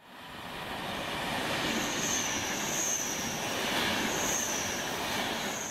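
A train running on the rails with a high, wavering wheel squeal that comes and goes over a steady rushing noise, fading in over the first second.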